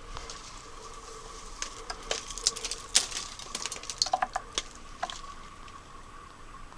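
Clicks, scrapes and light rattles of a rusted cable and a decayed electrical fitting being handled and pulled out of an old metal wall box, bunched in the middle few seconds, over a faint steady tone.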